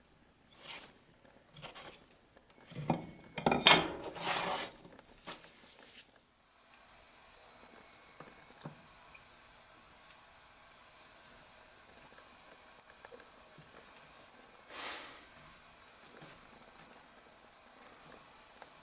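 Several scraping and rubbing strokes from hands working wood pieces, the loudest about four seconds in, followed by a long quiet stretch with one short swish later on.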